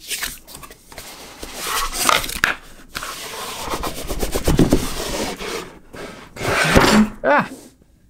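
Cardboard scraping and rubbing as a snug inner box is worked out of a corrugated shipping box, with small knocks along the way. The loudest scrape comes near the end, followed by a short "Ah!".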